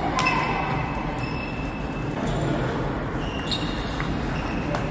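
Table tennis rally: a celluloid ball clicking sharply off the bats and table a few times, over the clatter of other tables' rallies in a large, echoing sports hall.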